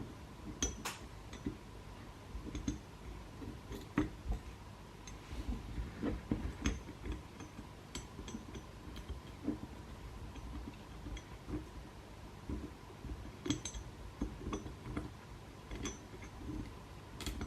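Irregular light metallic clicks and clinks of hand tools on the engine parts of a Honda CR125 two-stroke as a stuck part is worked loose.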